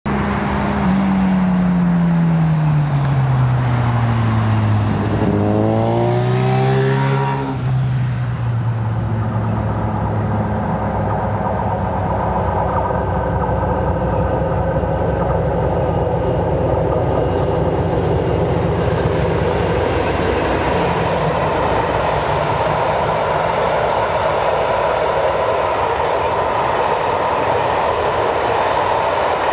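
Class 56 diesel locomotive 56105 hauling a train of log-laden timber wagons past. Its engine note falls and then rises again over the first seven seconds or so. After that comes a steady rumble and clatter as the loaded wagons roll by.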